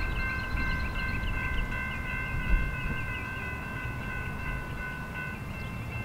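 Railroad grade-crossing signal ringing its steady warning tone while an approaching freight train rumbles low in the distance.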